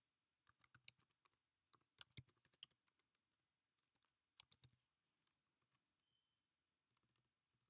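Faint keystrokes on a computer keyboard: short clusters of taps about half a second in, around two seconds in and again near four and a half seconds, with quiet gaps between.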